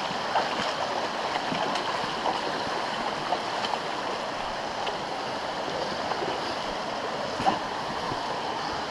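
Shallow, rocky stream water running and splashing steadily around the wheels and boots as a dirt bike is pushed through it with its engine off, with a few small knocks.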